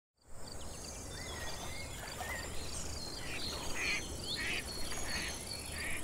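Outdoor nature ambience: several birds calling with short whistles and chirps over a steady, evenly repeating high insect trill.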